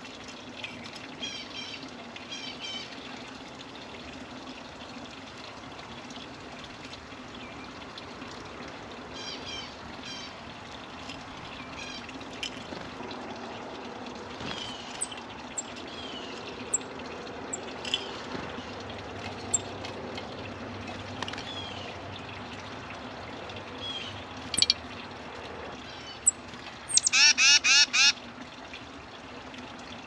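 Wild birds calling: scattered short chirps and sliding whistled notes, then a rapid burst of loud calls near the end, over a steady background of trickling water.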